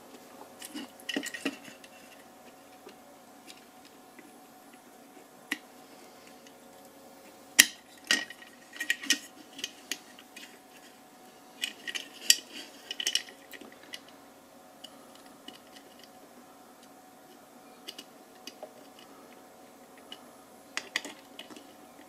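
Scattered small metallic clicks and taps as a soldering iron and an LED chip are worked against a floodlight's metal housing during desoldering, in clusters with quiet stretches between; the sharpest click comes about seven and a half seconds in. A faint low hum runs underneath.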